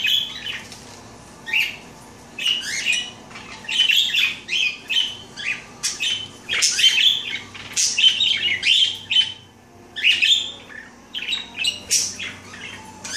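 Budgerigars (parakeets) chirping and chattering: many short, high chirps and warbles in quick runs, pausing now and then.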